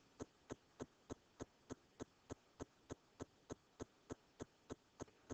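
Near silence with a faint, evenly spaced ticking, about three ticks a second.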